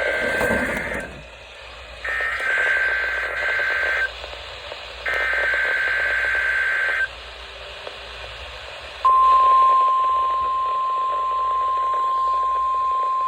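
EAS Required Weekly Test tones received on a NOAA Weather Radio over light static. The end of one SAME header data burst is followed by two more buzzy data bursts, each about two seconds long with a second's gap between them. About nine seconds in, the steady 1050 Hz warning alarm tone begins.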